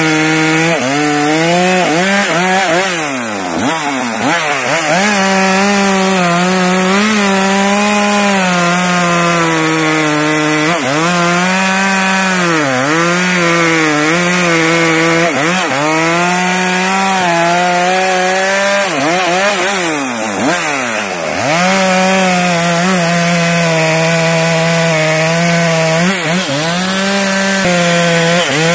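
Stihl MS 462 two-stroke chainsaw running at high revs while cutting through a large log. The engine pitch dips and recovers several times as the chain works in the wood.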